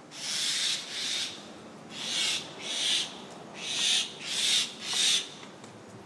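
A parent bird giving a rapid series of about seven harsh, rasping calls, each under a second long: scolding alarm calls made while mobbing a dog near its young.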